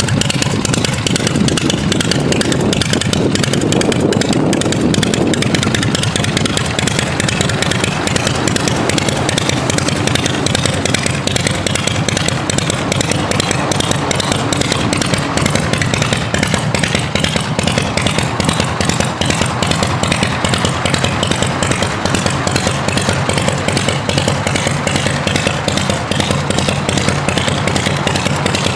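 Harley-Davidson Shovelhead V-twin engine of a custom chopper running steadily, with the even, rapid pulse of its exhaust; it swells briefly about four seconds in.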